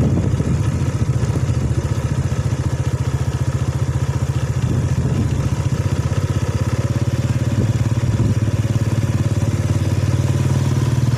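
Motorcycle engine running steadily, a fast even pulsing with no change in revs.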